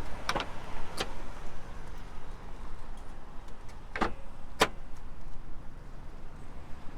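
Four sharp clicks over a steady low rumble: two in the first second, two more about four seconds in.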